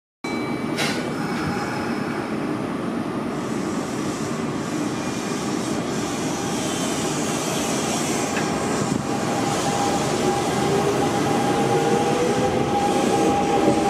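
Kintetsu 6620-series electric train pulling out of the station: a steady rumble that grows slowly louder, with the motor whine rising in pitch from about ten seconds in as the train picks up speed. A short click comes about a second in.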